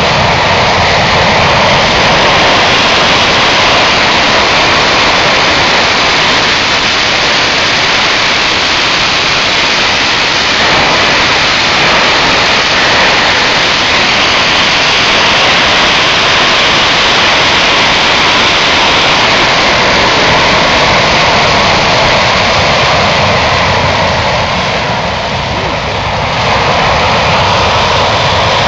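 Aircraft engine running loudly and steadily, a dense even roar with a brief dip in level about 25 seconds in.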